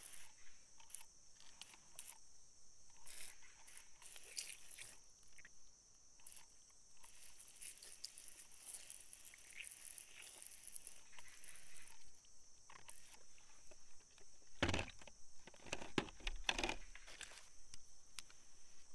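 A thin stream of water poured over a large faceted blue gem held in the hand, pattering and trickling off it onto wet soil, with a few louder knocks and rustles as the hand handles the stone near the end. A steady high insect chorus runs underneath.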